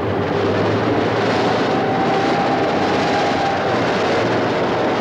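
Tank engine and tracks running, a loud steady rumble with a thin high whine that comes in about two seconds in and fades near the end.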